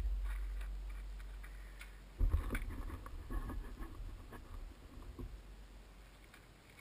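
Small quadcopter's electric motors and propellers fading out over about two seconds, then faint scattered knocks and low rumbles.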